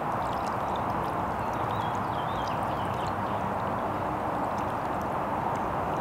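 Water poured from a small plastic cup trickling and dripping onto rocks in a shallow planter saucer, with faint light drips in the first few seconds, over a steady outdoor background hiss.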